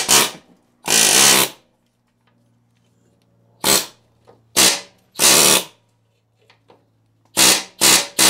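Pneumatic air hammer with a blunt chisel bit, hammering in about seven short bursts against a front strut rusted into its shock tower, to shake the rust loose and free the strut.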